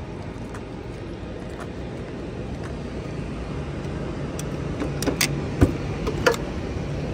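Steady airport-ramp background noise with a low hum that grows slightly louder. A few sharp clicks and a knock come about five to six and a half seconds in.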